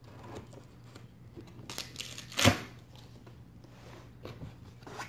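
A cardboard shipping box being opened: flaps pulled back and packing rustling and crinkling, with one sharp thump about halfway through.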